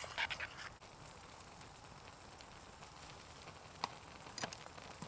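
Faint steady sizzle of macaroni cheese cooking in a pot over a Trangia spirit burner flame. A quick run of clinks from the stirring utensil against the pot comes right at the start, and two single knocks come near the end.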